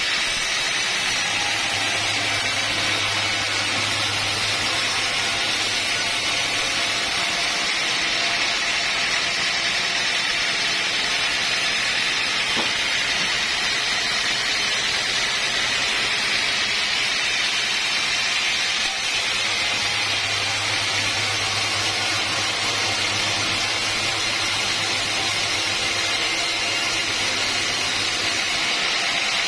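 Sawmill blade running steadily through a log, an even hissing whine, with a low machine hum that comes in twice.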